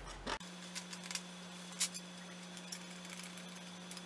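A handheld gasket scraper scratching briefly at the aluminium cylinder head's intake mating surface, a few short scrapes about a second apart, over a steady low hum.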